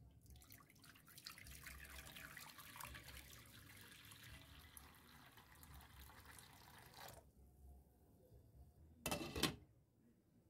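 A thin stream of water pouring into a shallow ceramic-coated frying pan, splashing as the pan fills, stops abruptly about seven seconds in. About two seconds later comes a short, louder clatter as a glass lid with a metal rim is set on the pan.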